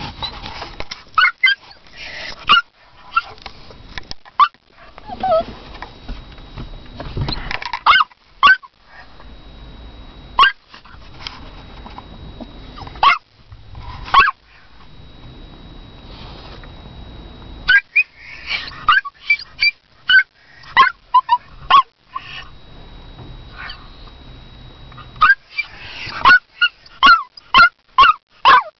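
Toy poodle barking in short, sharp barks that come in irregular bursts with pauses between them, then a quick run of barks near the end.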